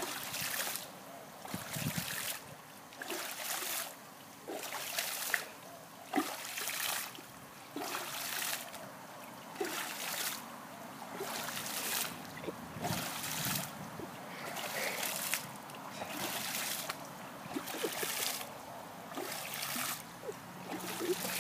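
Swimming-pool water splashing and churning in a steady rhythm, about once every second and a quarter, as a flat board is pushed down through the surface over and over, carrying air under the water.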